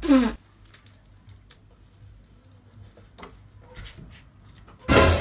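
Faint scattered rustles and taps of a sheet of paper being pressed and smoothed against a door, after a brief falling voice-like sound at the start. About five seconds in, loud music with brass comes in.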